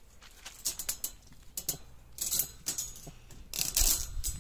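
A metal wire crate and the small chain on its door clinking and rattling as it is handled, in several short spells about a second apart, the busiest near the end. A dull handling thump comes at the very end.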